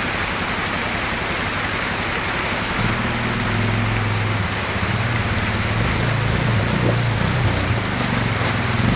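Creek water rushing over rocks, with a Suzuki ATV's engine running underneath; about three seconds in the engine comes up and keeps working unevenly as the quad crawls over the boulders.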